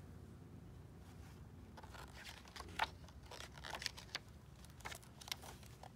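Faint paper rustling and crinkling as a picture-book page is handled and turned, a scatter of soft crackles starting about two seconds in.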